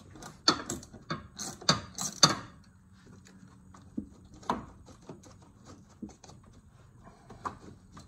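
Socket ratchet clicking in a quick, uneven run of sharp clicks as the nut on the car battery's negative terminal clamp is loosened, followed by a few fainter scattered clicks and knocks as the clamp is worked at by hand.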